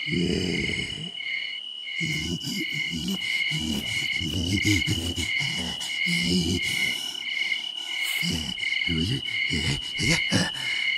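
Crickets chirping in an even rhythm of about three chirps every two seconds, over a continuous high insect trill. Underneath are low, uneven pulsing sounds.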